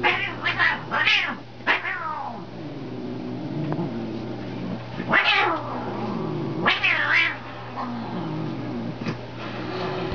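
Domestic tabby cat growling low and steadily, breaking into loud yowls that fall in pitch several times in the first two seconds, then about five, seven and nine seconds in. This is a defensive, territorial display.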